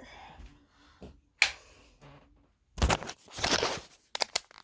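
Handling noises: a sharp click about a second and a half in, then rustling and a quick run of sharp clicks near the end.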